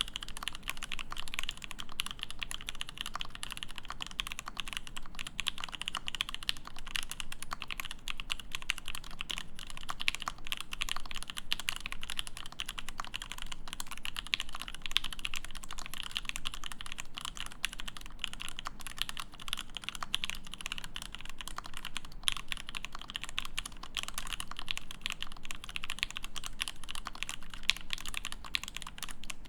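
Continuous fast typing on a Kibodo Studio Cyberpunk mechanical keyboard with factory-lubed Mekanisk Ultramarine switches in an acrylic plate and GMK Taro keycaps: a dense, steady stream of keystroke clacks.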